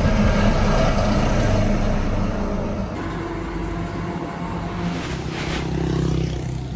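Heavy truck engine running with a steady low drone. The sound changes abruptly about three seconds in, and a rushing noise swells briefly near the end.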